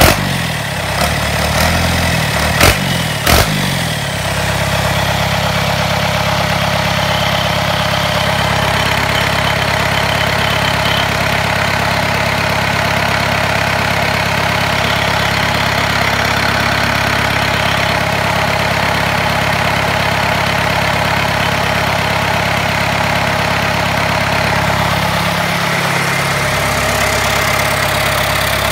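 Cummins 4BT four-cylinder diesel engine running at a steady idle on a stand. A few sharp knocks sound within the first four seconds, then the idle holds even.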